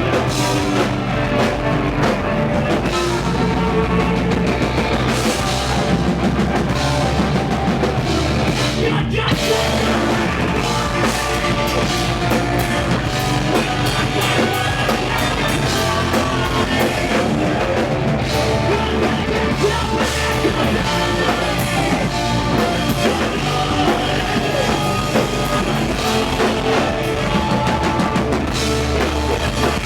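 Rock band playing live at full volume, with a drum kit under the band and a moving bass line. There is a split-second break about nine seconds in.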